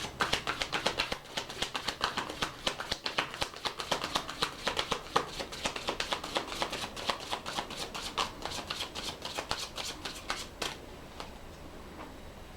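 A deck of message cards being shuffled by hand: a rapid, continuous run of soft card clicks that stops near the end.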